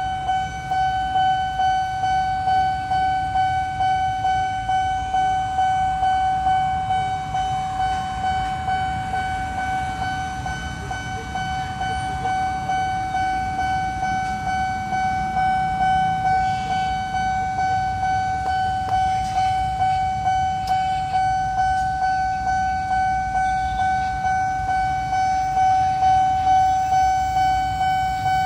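Railway level-crossing warning alarm sounding continuously while the barrier is down: a steady electronic tone that pulses about one and a half times a second. Low traffic rumble, including motorbikes, runs underneath.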